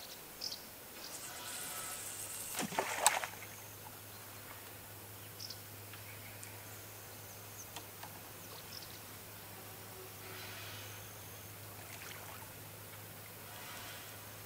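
Feeder rod being cast: line hisses off a spinning reel for about two seconds and ends in a sharp snap about three seconds in. Faint reel winding and clicks follow later as the line is tightened.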